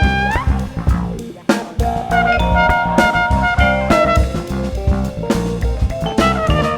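Live jazz quintet playing with drum kit, electric bass, keyboards, vibraphone and trumpet. A held note bends upward at the start, the band breaks off briefly about a second and a half in, then comes back in with the drums.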